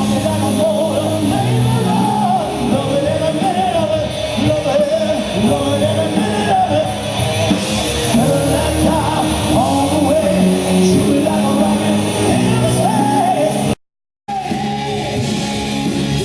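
Rock music with a singing voice, steady and loud, cutting out completely for about half a second near the end.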